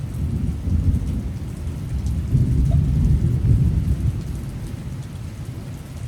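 Heavy rain with a long low roll of thunder that swells about halfway through and fades toward the end.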